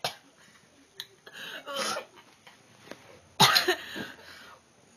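A young woman coughing and gagging in her throat after tasting baby food: a rough burst about a second and a half in, and a louder one about three and a half seconds in.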